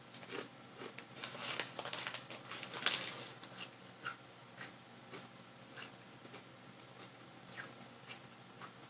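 Snack chips crunching as they are bitten and chewed, loudest from about one to three and a half seconds in, with the crinkle of the chip bag and a few scattered crunches after.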